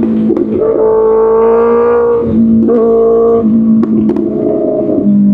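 2025 Kawasaki Ninja ZX-6R inline-four engine through an Arrow Pro Race exhaust, revving hard in repeated surges. The pitch jumps up sharply, holds, then drops back, several times over, with a few sharp clicks between.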